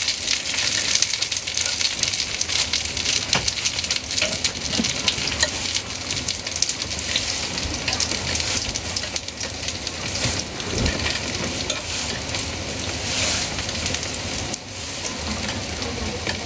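Flatbreads frying in hot oil: a steady sizzle with small crackles and pops.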